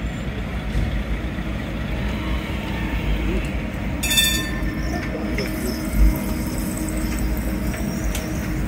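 Translohr rubber-tyred tram pulling slowly past at close range, a steady low rumble. About four seconds in there is a brief high-pitched ring, and a low thump comes about two seconds later.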